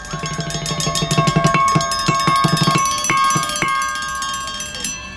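Square metal tubes struck rapidly with wooden sticks, a dense run of strikes ringing out in several bell-like metallic pitches that overlap. The strikes thin out and the sound eases off toward the end.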